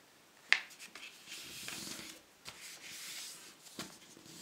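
A sheet of A4 paper being folded, its crease pressed flat by fingertips: a sharp tap about half a second in, then soft rustling and rubbing as the fingers slide along the fold.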